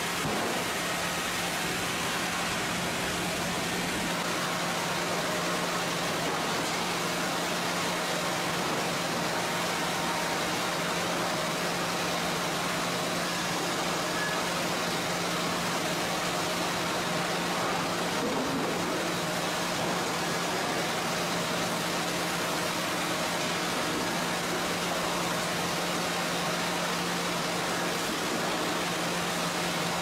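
Steady machinery noise of a sawmill's board-handling line, with chain and roller conveyors running under a constant low electric-motor hum; no separate impacts or saw cuts stand out.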